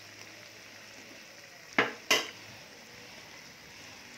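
Fish pieces frying gently in oil in a nonstick pan with a faint steady sizzle as a spatula stirs them. About two seconds in come two sharp taps of the spatula against the pan, a fraction of a second apart.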